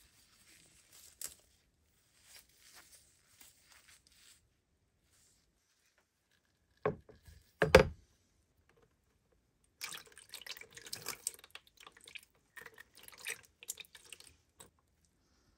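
Faint handling of a heavy iron axe head in gloved hands, then two sharp knocks about seven seconds in as it is set down in a metal tray, the second louder. From about ten seconds in, irregular wet splashing and dripping as the axe head is handled in a liquid rust-removal bath.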